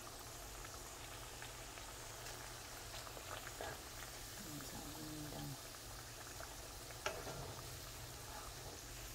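Banana pieces frying in hot oil in a pan: a steady, quiet bubbling sizzle, with a few light clicks, the sharpest about seven seconds in.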